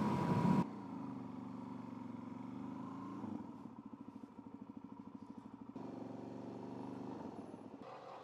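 Suzuki DR-Z400S single-cylinder four-stroke engine running at low speed. A loud rush of wind on the microphone cuts off about half a second in, and for a couple of seconds midway the engine goes to an even, lumpy beat.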